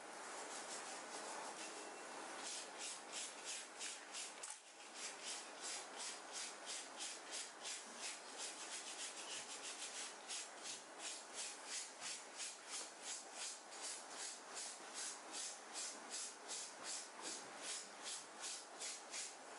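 A hand scrub brush scrubbing a stained, wet cotton shirt in quick back-and-forth strokes, about three a second, as the stain is worked out of the fabric.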